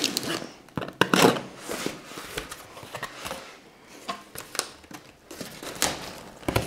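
A cardboard shipping box being cut open with a knife and its flaps pulled back: irregular crackling, scraping and rustling of cardboard and packing tape.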